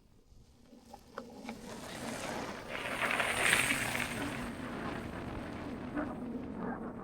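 Wind rushing over the microphone together with the rolling noise of a bicycle on the move, building over the first few seconds as the bike gathers speed, then holding steady, with a few small clicks and rattles.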